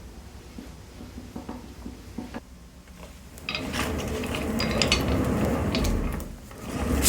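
Secretlab Omega gaming chair's casters rolling across the floor, a rattling, clicking noise that starts about halfway through and breaks off briefly near the end. The casters have become noisy after about two months of use.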